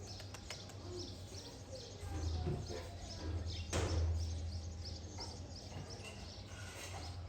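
Small birds chirping in short, repeated calls over a low rumble, with one sharp knock almost four seconds in.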